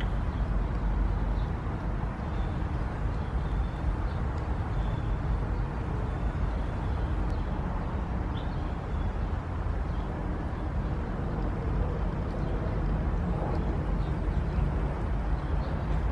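Steady low rumbling outdoor background noise, with a few faint short high chirps now and then.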